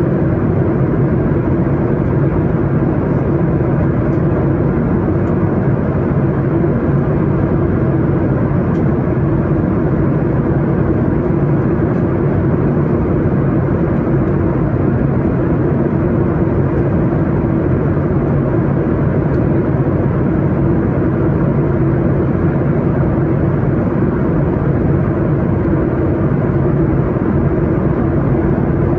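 Steady in-flight cabin noise of a Boeing 737 MAX 8 airliner: a constant rushing hum of airflow and engines with a low drone beneath, unchanging throughout.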